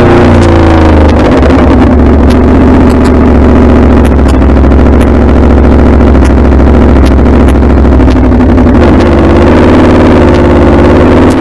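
Aprilia Tuono V4 motorcycle's V4 engine, heard from the rider's helmet camera. The revs drop over the first second as it slows for a roundabout, it runs low and steady through the turn, and the pitch climbs near the end as it accelerates away.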